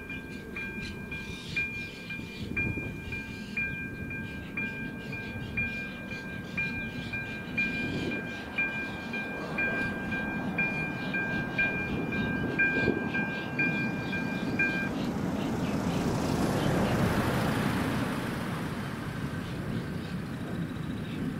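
AŽD 97 level-crossing warning bell ringing electronically, a bright stroke about twice a second over a held tone, as the barriers lower. It stops about 15 seconds in, once the barriers are down. A rushing noise then swells and fades.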